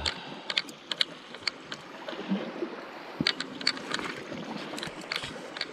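Sea water washing against shore rocks, with scattered sharp clicks and taps as a landing net and its catch are handled.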